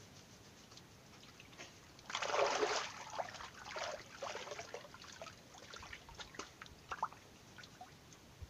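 Water being splashed and poured by a person bathing. There is a loud rush of water about two seconds in, lasting around a second, followed by smaller irregular splashes and trickles.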